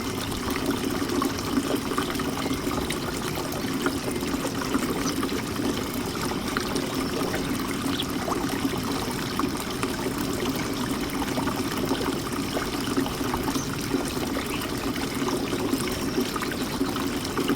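Birdbath fountain water trickling and splashing steadily.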